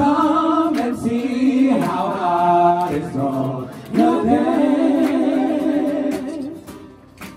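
A live male vocal group singing long held notes in harmony, with vibrato, three sustained notes in turn. The singing fades out near the end.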